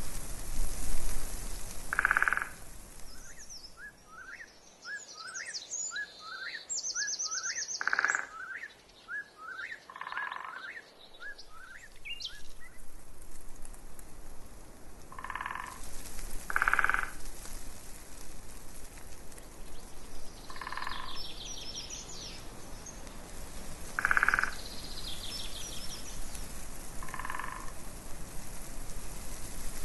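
Frogs croaking in short calls every few seconds, with birds singing over them: a run of quick rising chirps in the first half and high trills in the second half. A soft hiss sits beneath, louder at the start and near the end.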